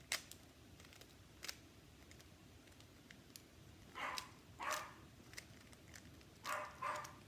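A dog barking faintly: two pairs of short barks in the second half, after a couple of faint clicks.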